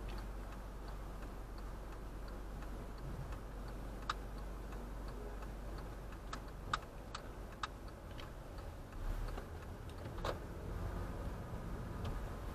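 Car turn-signal indicator ticking at an even pace over the low hum of the engine, with a few sharper clicks in between.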